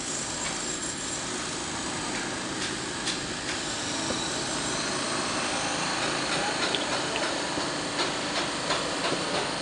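Steady outdoor background noise, a rushing hiss with a faint low hum that comes in about halfway through, and a few light clicks.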